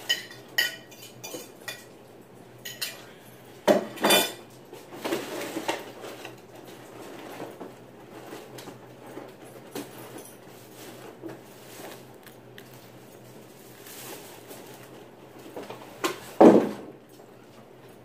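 Cutlery and a dinner plate clinking and knocking while food is eaten at the table: scattered light clicks, a louder pair of knocks about four seconds in, and the loudest knock about sixteen seconds in.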